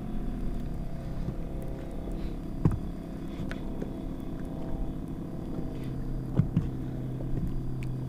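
Steady low hum of a boat's motor, with a few light knocks. A deeper steady tone joins in about six seconds in.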